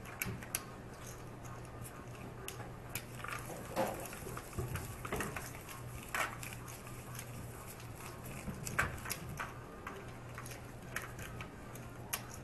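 Poker chips clicking and clacking in scattered short bursts as the pot is pushed and stacked, with playing cards being gathered, over a low steady hum.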